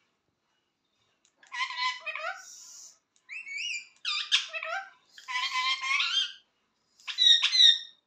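Caged green parakeet calling in about five bursts of squawks and chattering, some with rising-and-falling whistled glides, beginning about a second and a half in; the loudest burst comes near the end.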